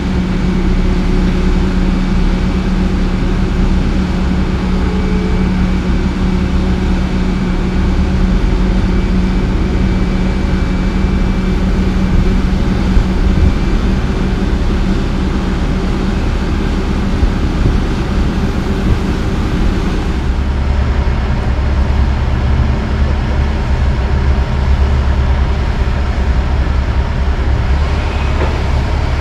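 Heavy diesel engines running steadily as a loaded Western Star dump truck with a half-round trailer pulls slowly away from a John Deere 350D LC excavator. About two-thirds of the way through, the sound turns to a deeper low rumble as the truck's engine is heard up close.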